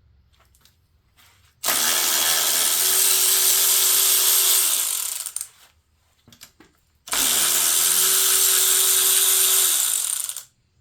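A power tool spinning out engine bolts, running in two long bursts of about three and a half seconds each: a loud hiss with a steady whine under it.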